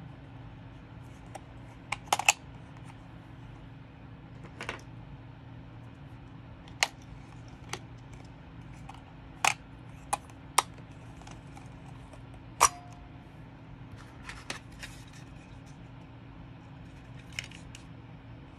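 Sharp plastic-and-metal clicks from a Sony MZ-S1 MiniDisc Walkman being handled, its disc lid and battery compartment door opening and snapping, about a dozen separate clicks a second or more apart, a few in quick pairs.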